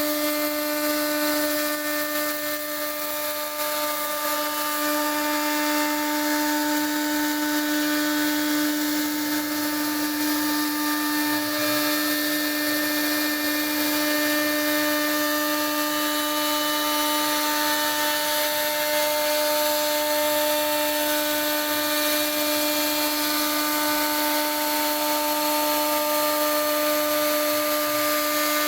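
CNC router spindle running at a steady high whine as it carves wood, with a hiss from the cut.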